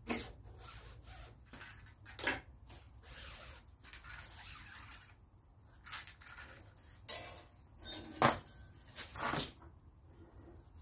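Clicks, clinks and rustling from handling the MIG welder's torch cable and fittings while the old welding wire is taken out, with several sharp metallic clicks among the quieter rustling.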